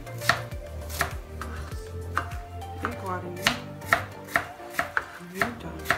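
Kitchen knives chopping fruit on cutting boards: irregular sharp knocks of the blades hitting the boards, about two a second.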